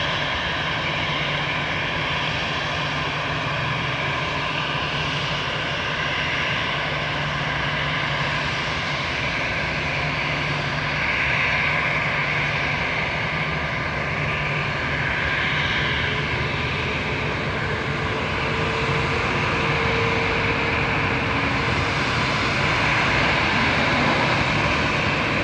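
Airbus A330-900neo's Rolls-Royce Trent 7000 turbofans running at low thrust as the airliner taxis, a steady jet whine of several tones over a low rumble, growing slightly louder near the end.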